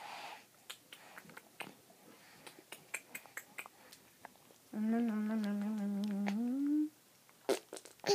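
Scattered small soft clicks, then a person humming one held note for about two seconds, wavering slightly and rising in pitch at the end.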